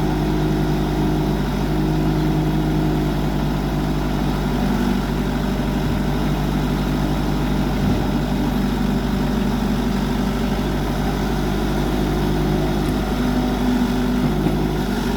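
Engine running steadily, its pitch shifting slightly about five seconds in and again near the end.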